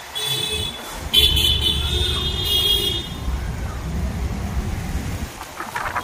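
Vehicle horns honking in two stretches, the second lasting about two seconds, over a low rumble that fades out about five seconds in.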